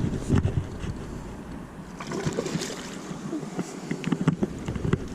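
Low wind rumble on the microphone with scattered clicks and knocks, heaviest in the first second and sparser from about two seconds in.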